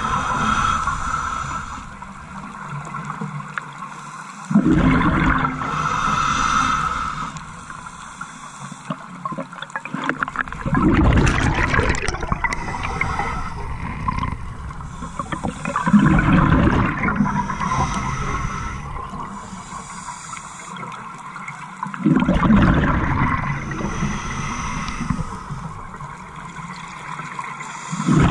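Scuba diver breathing through a regulator underwater: exhaled bubbles gurgle and rumble in a burst about every six seconds, with a quieter hiss between breaths.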